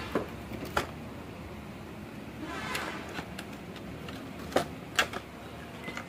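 Handling noise from a toy car's cardboard box and plastic packaging as the remote control is taken out: a sharp click about a second in, a brief rustle around the middle, and two more knocks near the end.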